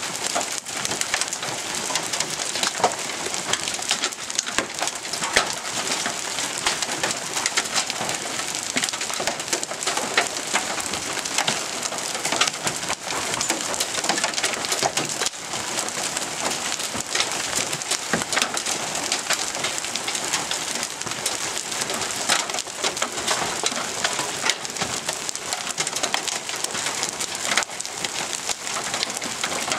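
Small hail, up to half an inch across, falling steadily with rain: a dense, unbroken clatter of countless small impacts on the ground, the car and the leaves, strongest in the upper range.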